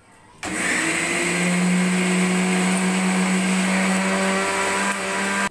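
750-watt electric mixer grinder running, its steel jar grinding coconut chutney with water. The motor starts about half a second in with a short rising whine, runs steadily, and cuts off suddenly at the end.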